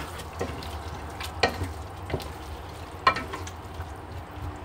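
Wooden spoon stirring potatoes and peas in a metal pot, knocking and scraping against the pot several times, over a steady low sizzle of the food cooking.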